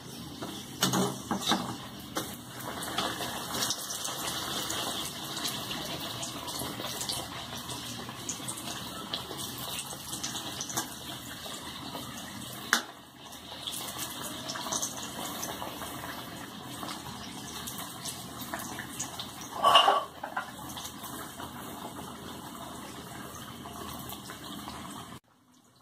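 Dal kachoris sizzling as they deep-fry in hot oil in a kadai, a steady crackling hiss. A few knocks of the metal skimmer come about a second in, and a louder one near twenty seconds. The sizzle cuts off suddenly just before the end.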